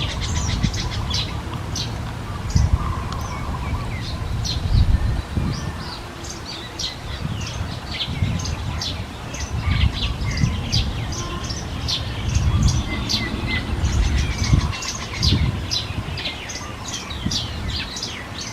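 Baby birds chirping in quick, high, short calls, many overlapping, with irregular low rumbles underneath.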